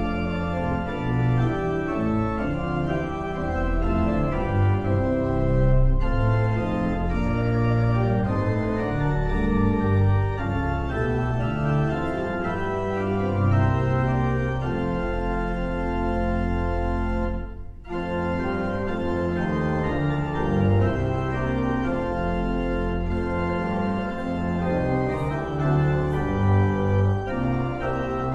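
Church pipe organ playing in held chords that change every second or so, with a short break about two-thirds of the way through.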